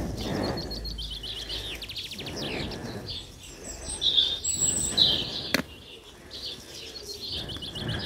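Garden birds chirping and singing, with short calls and rapid trills, the loudest about four and five seconds in. Under them come soft scraping rustles as a stick pushes banana peels into the compost of a planter tub, and there is one sharp click.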